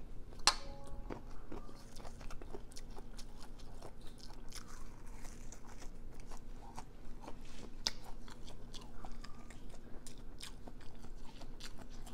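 A person chewing and crunching mouthfuls of raw leafy greens close to a clip-on microphone, with irregular wet clicks and crunches throughout and one sharp click about half a second in.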